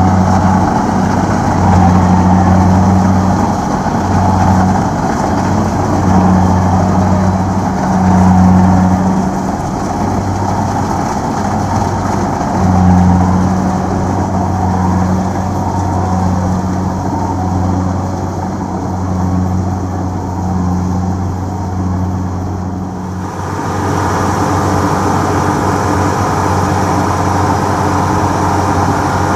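Kubota DC-70 Plus combine harvester's diesel engine running, a low hum that swells and drops every second or so. About three-quarters of the way through the sound changes abruptly to a steadier engine note.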